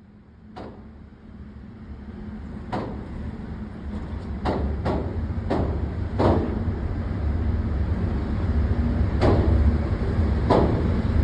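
Handgun shots: about eight sharp reports at irregular intervals, over a steady low rumble.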